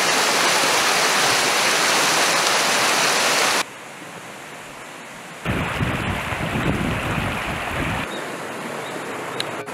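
Mountain stream water rushing over rocks and a small cascade, loud and steady, cut off abruptly after three and a half seconds. Then a quieter outdoor stretch, a rumble of wind on the microphone for a couple of seconds, and softer flowing water near the end.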